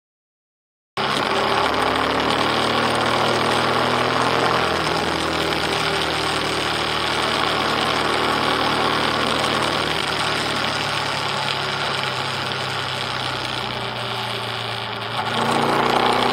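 Motorcycle engine running under way, recorded from an onboard camera with wind rush over it. It cuts in about a second in; the engine note sinks slowly, then the revs and loudness rise near the end.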